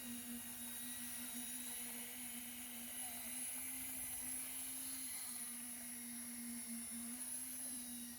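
Steady machine hum at one constant pitch from the equipment on a concrete slab pour, with a faint high whine above it.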